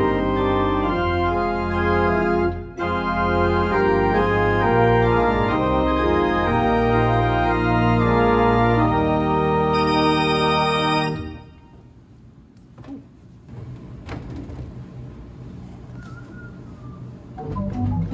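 Eleven-rank Rieger tracker pipe organ playing full sustained chords over a deep pedal bass. About 11 seconds in the playing stops, leaving the tone dying away in the room with a few clicks, and the organ starts again near the end.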